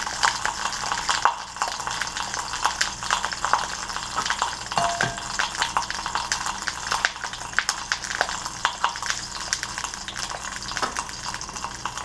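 Pepper halves frying face down in hot oil: a steady sizzle full of sharp crackles and spits. Eggs being cracked and worked over a glass bowl add light clicks and taps.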